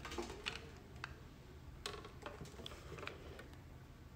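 Faint, irregular light clicks and taps of cables and plugs being handled and knocking against a stone tabletop.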